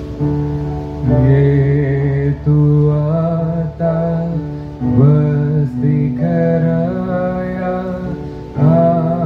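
A man singing a slow devotional song into a microphone, drawn-out notes with a wavering pitch, over steady sustained backing chords.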